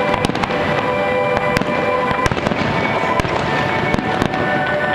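Fireworks display: aerial shells and barge-fired effects going off in a string of irregular sharp bangs, over music with long held notes.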